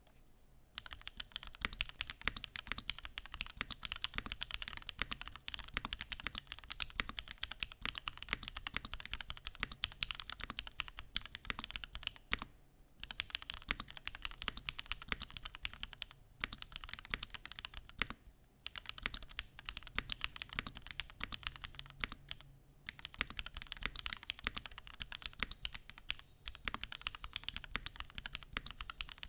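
Typing on a Mode Sonnet custom mechanical keyboard: fast, continuous keystroke clicks with a few brief pauses.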